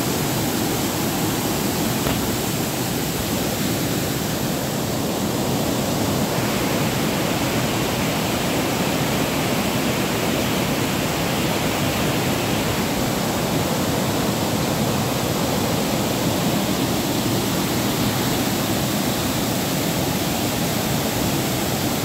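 A waterfall and the white-water rapids below it rushing over boulders in heavy flow, a steady, loud rush of water.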